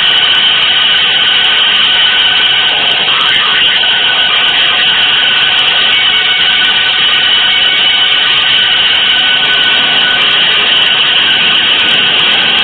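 Avant-garde noise music: a loud, steady rushing drone with faint held tones inside it.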